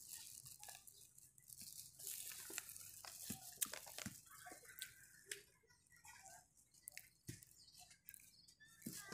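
Faint, irregular rustling and crinkling of a thin plastic carrier bag and a paper snack bag as they are handled, in scattered soft crackles and clicks.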